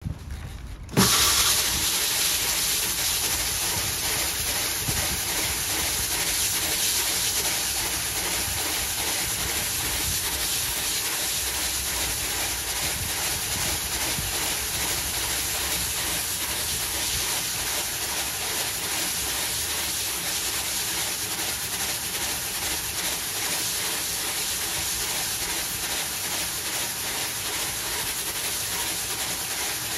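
Single-disc rotary scrubbing machine running over wet brick pavers, scrubbing lichen off the stones. Its motor and spinning brush make a steady hiss on the wet surface, coming in sharply about a second in.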